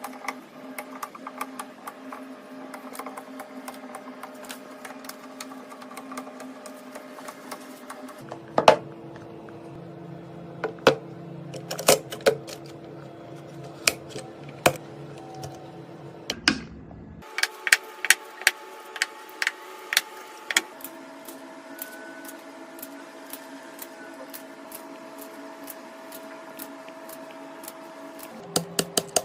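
Scattered sharp clicks and taps of computer parts being handled and fitted together during a PC build, over a steady hum that changes at a few cuts.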